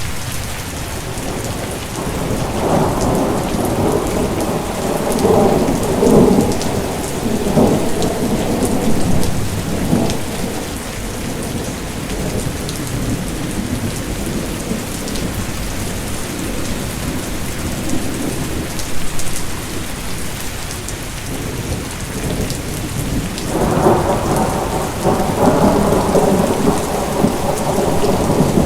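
Steady rain falling, with rolling thunder: one long rumble from about two seconds in to about ten seconds, and another starting a few seconds before the end.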